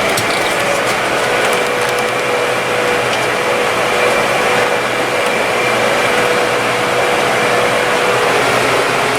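Farm tractor running steadily at close range: a loud, even noise with a steady whine on top that fades out near the end.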